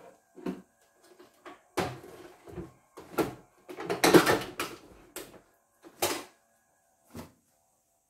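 Irregular knocks and clatter of hands handling a portable embroidery machine on a bench, a handful of separate thumps with the loudest, busiest run of them about four seconds in and the last near seven seconds.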